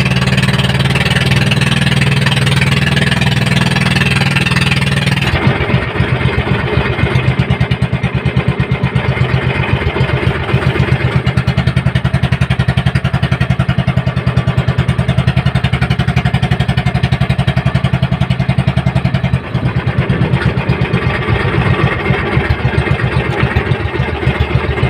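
Outrigger boat's engine running steadily under way. About five seconds in, its sound changes to a rapid, even pulsing beat.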